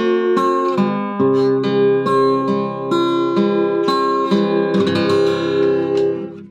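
Acoustic guitar strummed through a run of chords, with a stroke about every half second, as the song's instrumental ending; the last chord dies away near the end.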